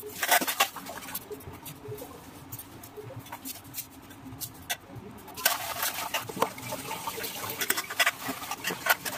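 Sharp clinks of a utensil against a metal pan in the first second, then a crackling sizzle that starts suddenly about five and a half seconds in: food frying in hot oil in a wok.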